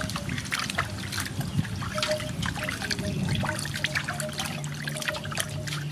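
Water splashing and dripping in a metal basin as a whole raw chicken is rubbed and turned by hand to wash it: irregular small splashes and trickles.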